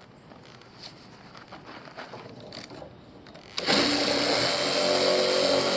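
A power tool starts about two-thirds of the way in and runs steadily at a constant pitch, cutting an opening through an insulated concrete form block. Before it starts there are only faint knocks and handling sounds.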